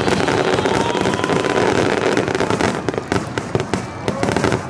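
Fireworks barrage: many aerial shells bursting at once in a continuous rumble, turning into dense rapid crackling in the second half.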